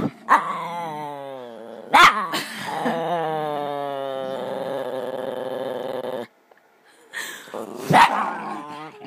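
Pet dog making drawn-out, wavering vocal noises: a long call sliding in pitch and then holding steady for several seconds before it stops suddenly, broken by a few short sharp calls, with more calling after a brief pause near the end.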